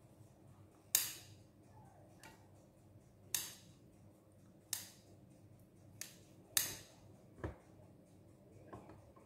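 Scissors snipping the crusts off slices of white bread: sharp snips at irregular intervals, roughly one a second, with a duller knock just before the end.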